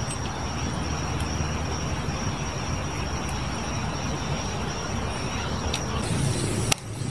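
A steady, high-pitched trill of night insects over a low, steady rumble. About six seconds in the sound changes abruptly, the trill stops and a sharp click follows.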